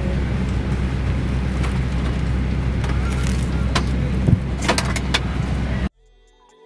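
Airliner cabin noise: a steady low drone of the jet engines and rushing air, with a few sharp clicks about four to five seconds in. It cuts off abruptly near the end.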